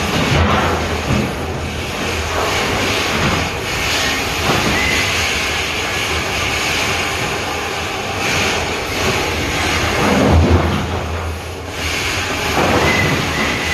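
Mucking machinery working in a mine shaft bottom: a loud, steady rush of machine and air noise with scattered knocks, and a heavier thud about ten seconds in.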